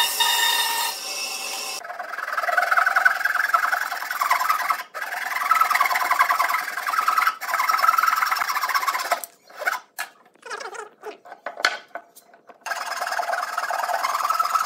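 A band saw running briefly as it finishes a cut. About two seconds in it gives way to a hand saw rasping back and forth through a wooden block, with short gaps and a choppy stretch in the middle.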